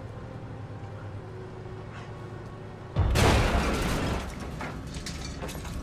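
A vehicle engine running low and steady, then about three seconds in a sudden loud crash and blast as vehicles are wrecked, dying away over a second into scattered clattering of debris.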